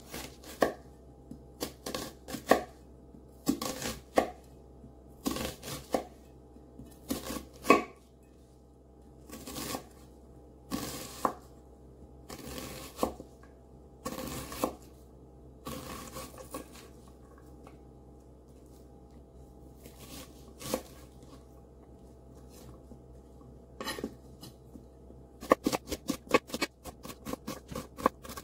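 Kitchen knife cutting an onion on a wooden cutting board: separate slicing strokes, each ending in a knock on the board. After a sparse stretch comes a quick run of chopping near the end, about five strokes a second.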